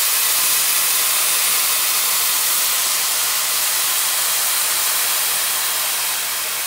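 Cold water pouring from a kettle into a hot pot of sautéed rice, hissing and sizzling steadily as it hits the hot pan, easing off slowly near the end.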